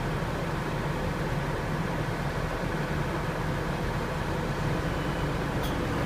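Merlo Roto 38.16 telehandler's diesel engine running steadily while it works the boom and fly-jib winch load.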